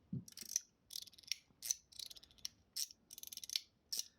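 Stainless steel mechanical fidget slider with a spring-and-ball detent, slid back and forth over and over: quick clusters of metallic clicks and rattling ticks, about two slides a second.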